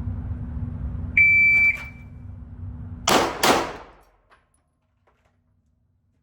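Shot-timer start beep, one short steady high tone, then about two seconds later two pistol shots a third of a second apart: a timed draw to a first shot and a fast second shot. A steady low hum runs underneath until the shots.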